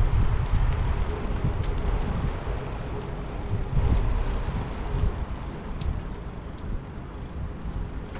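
Wind rumbling unevenly on the microphone of a camera riding on a bicycle, over a steady wash of city traffic noise, with a few faint rattling clicks.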